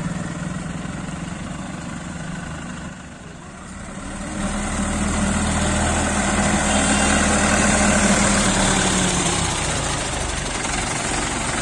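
Diesel engine of an ACE 12XW hydra mobile crane running steadily, growing louder about four seconds in after a brief lull. At the start the engine of a passing motorcycle fades away.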